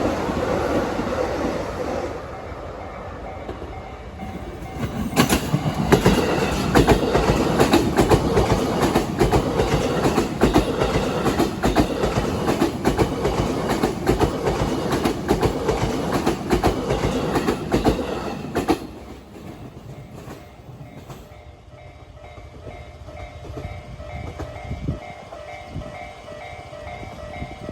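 A train running over rail joints, its wheels clacking loudly and rapidly for about fourteen seconds before the clatter cuts off. A level-crossing warning bell rings in a repeating two-tone pattern, plainest once the train has passed.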